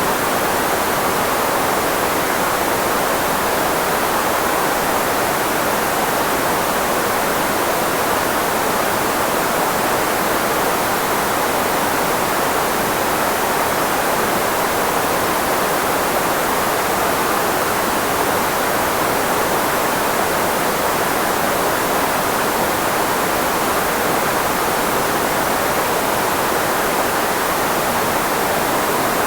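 Steady, unchanging filtered white noise, strongest in the middle frequencies where the human voice lies and thin in the deep bass: a speech-masking noise.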